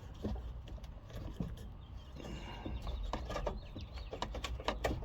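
Scattered light clicks, taps and rustles of parts being handled as a glove box liner is worked into place under a car's dash.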